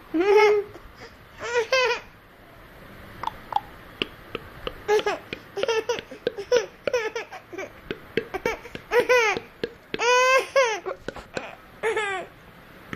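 A baby making short, high-pitched vocal sounds, babbling and laughing, in a string of separate calls that rise and fall in pitch, with the longest about two-thirds of the way through.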